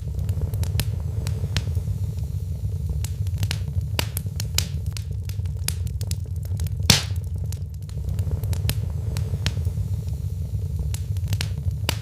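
Fire crackling in a fireplace: a steady low rumble of burning with scattered sharp crackles, and one loud pop about seven seconds in.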